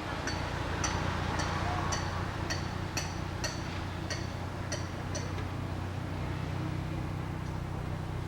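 A steady low hum like distant traffic, with about ten short, high chirps repeating roughly twice a second over the first five seconds.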